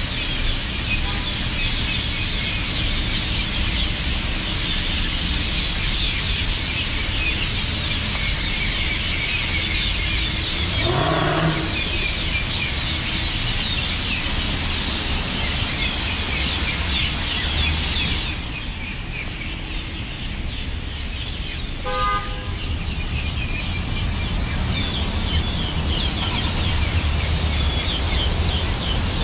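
Dense, continuous chatter of a large flock of hundreds of birds gathered at a communal roost, over steady traffic rumble. A short rising tone comes about 11 seconds in, and a car horn toots briefly about 22 seconds in.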